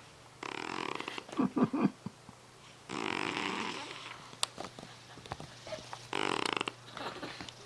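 Sleeping cat snoring: three raspy breaths, each about a second long and roughly three seconds apart. A few loud, short sputters follow the first.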